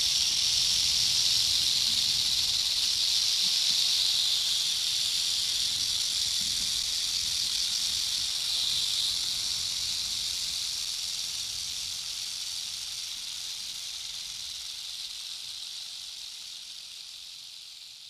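Rattlesnake shaking its tail rattle, a defensive warning: a continuous, high, dry buzz that holds steady for about four seconds, then slowly fades out.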